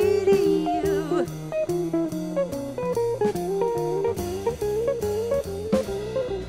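Swing jazz instrumental: a guitar playing a single-note solo line over a walking double bass and a drum kit with cymbals.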